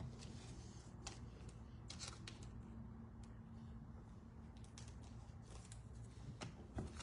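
Trading cards handled and slid against one another, making faint, scattered flicks and clicks.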